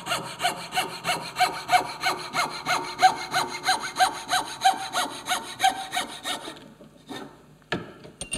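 Coping saw cutting a curve in a pine board, in quick, even strokes that stop about two-thirds of the way through, followed by a couple of light knocks.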